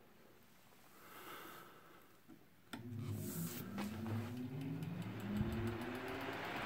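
Restored Emerson 27646 oscillating desk fan switched on with a click nearly three seconds in; its motor hum rises steadily in pitch as the brass blades spin up, with a growing rush of air.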